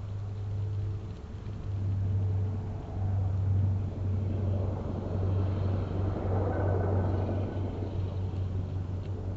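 A road vehicle passing by, its noise swelling over a few seconds and fading again, over a steady low hum.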